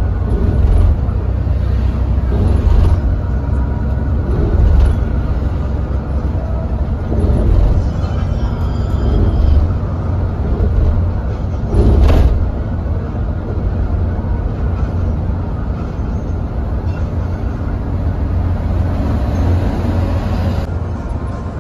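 Volvo B9R coach cruising on the highway, heard from inside the cabin: a steady low rumble of engine and road noise that swells and eases every few seconds. There is a single sharp knock about twelve seconds in.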